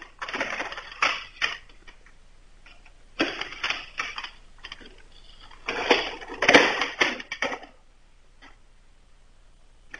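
Handling noise on the camera: rustling, scraping and small knocks in three bursts as the camera is picked up and repositioned, the loudest with a couple of sharp clicks near the middle.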